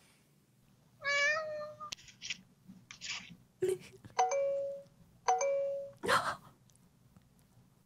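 A cat meowing several times in separate short calls. Two of the calls are flat, steady tones that each begin with a click.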